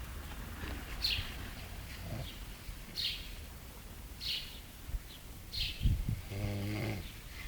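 Snoring: one pitched, buzzing snore about six seconds in, over a low steady hum. Short high bird chirps repeat about every one and a half seconds.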